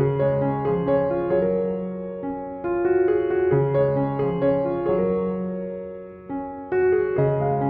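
Background music: a slow piano, electric-piano-like in tone, playing sustained chords and melody notes that are struck and left to ring, changing every second or so.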